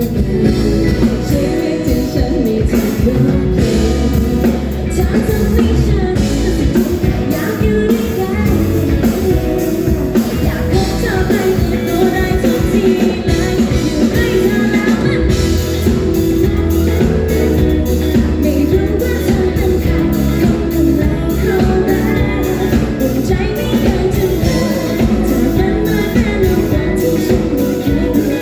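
A woman singing a Thai pop-rock song live over a band backing, with a steady drum beat.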